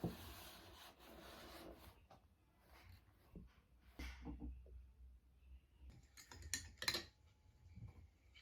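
Faint handling sounds: soft rubbing and rustling with scattered light clicks and taps, and a short cluster of sharper clicks about two-thirds of the way in.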